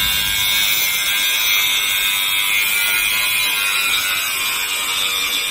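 Milwaukee 18V cordless power tool running steadily with a high-pitched buzzing whine.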